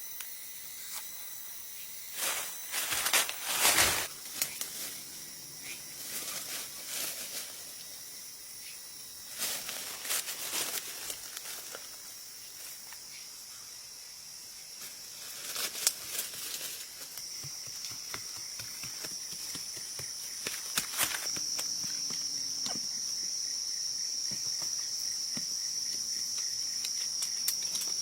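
A steady high insect chorus that grows louder past the middle, with several bursts of rustling footsteps through dry leaf litter.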